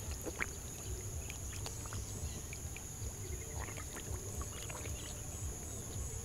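Small fish flapping and splashing in a shallow channel of muddy water, a scatter of irregular little splashes and slaps. Under it there is a steady low rumble and a steady high-pitched whine.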